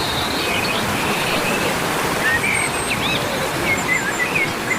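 Waterfall in full flood: a heavy, steady rush of falling water, with scattered short high chirps over it.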